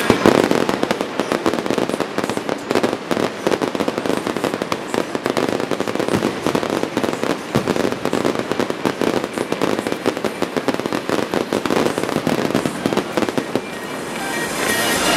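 Aerial fireworks display: shells bursting one after another in a dense barrage of bangs and crackle. The loudest burst comes right at the start, and it eases off a little near the end.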